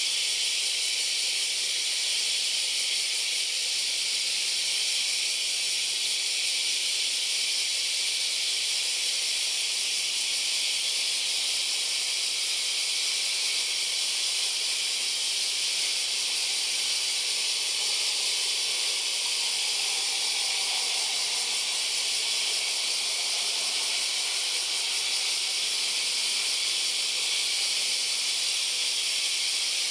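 A loud, steady high hiss with no change all through. Underneath it, the faint sound of a distant regional jet airliner's engines on take-off and climb swells slightly in the middle.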